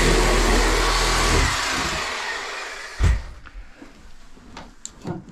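Cordless angle grinder running loudly, switched off about a second and a half in and spinning down. A thump follows about three seconds in, then a few light clicks of tools being handled.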